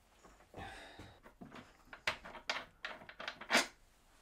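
Faint handling of small metal bolts and nuts being taken out of a plywood mitre-saw base: a brief rustle about half a second in, then a handful of light clicks and taps.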